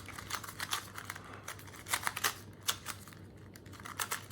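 GAN 251 M 2x2 magnetic speedcube being turned by hand: a run of irregular plastic clicks as its layers snap round, the cube set loose enough that the cuber finds it too fast.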